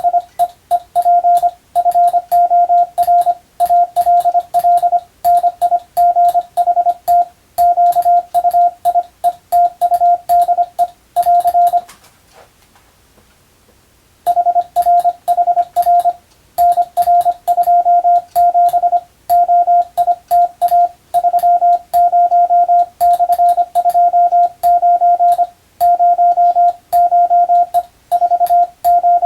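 Hand-keyed Morse code (CW): a single steady tone switched on and off in dots and dashes, sending telegram-style practice text. There are sharp clicks at the edges of the elements and one pause of about two seconds near the middle.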